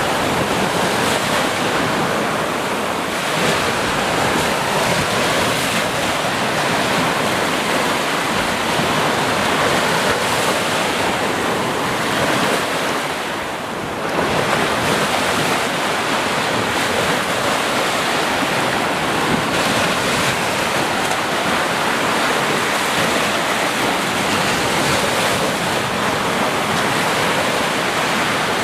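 Sea waves washing onto a shore in a continuous, steady rush of surf. About halfway through, it eases off briefly, then comes back suddenly.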